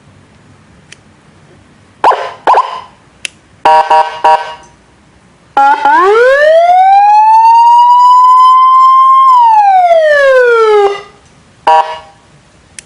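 Electronic 12-tone siren module sounding through a horn loudspeaker: a few short blasts, then a long wail that rises, holds high, and falls, and one more short blast near the end.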